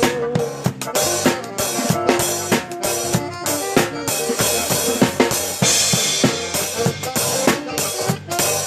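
Live band playing during a sound check: a drum kit keeps a steady beat with kick drum and snare under sustained pitched instrument notes, with a cymbal wash a little past halfway.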